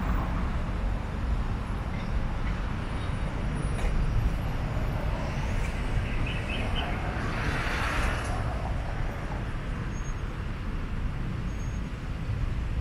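Steady low rumble of road traffic, with a vehicle passing by about eight seconds in.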